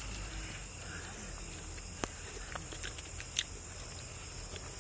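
A man eating chicken curry and rice with his hand: a few short, sharp mouth clicks and smacks as he chews. Under them runs a steady low hum and a steady high hiss.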